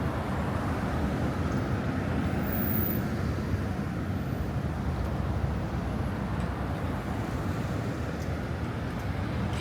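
City street ambience: a steady rumble of passing road traffic.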